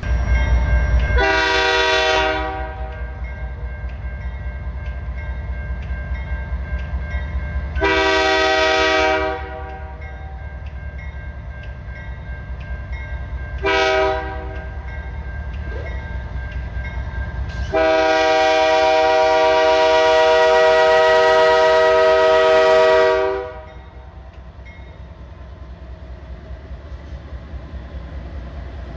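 Diesel freight locomotive's air horn blowing the grade-crossing signal: two long blasts, one short and a final long one, over the low rumble of the passing train. A crossing bell rings steadily underneath.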